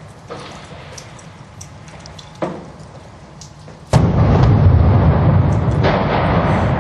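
A single heavy explosion about four seconds in, sudden and loud, followed by a long rolling rumble. Before it, scattered sharp cracks of distant gunfire, one of them louder about two and a half seconds in.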